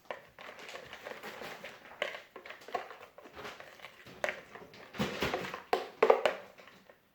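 Slime being mixed and squished after activator has been added: irregular wet, sticky squelches and scrapes, louder for a stretch about five seconds in.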